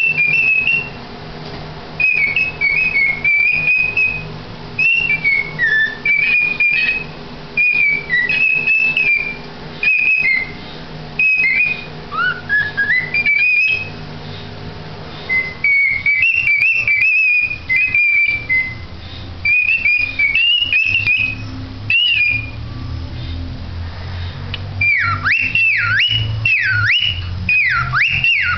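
Cockatiel singing: warbling whistled phrases in short bursts with pauses, one rising glide partway through, and near the end a quick run of about five whistles that swoop down and back up.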